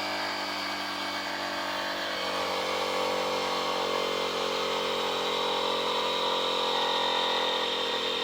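Ryobi cordless compressor (tire inflator) running steadily under load, its electric motor and piston pump inflating a flat tire toward 65 psi. The pump runs on newly fitted replacement bearings.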